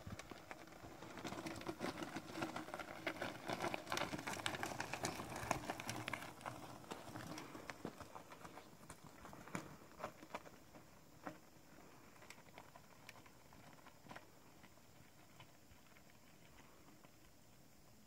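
Mountain bike tyres crunching and rattling over loose gravel and stones, with a rapid patter of small clicks. The sound is loudest a few seconds in as the bike passes close, then thins out and fades as it climbs away.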